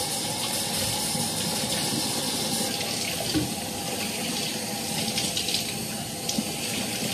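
Kitchen faucet running steadily into the sink as a bowl is rinsed under the stream, with a single knock of the dish about three seconds in.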